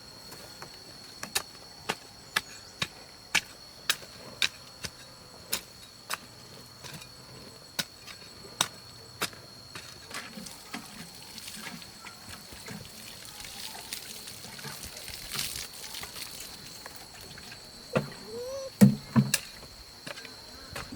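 Insects chirring in one steady high tone, with a run of sharp knocks about two a second through the first half. Near the end comes a brief louder sound whose pitch bends, followed by a few quick pulses.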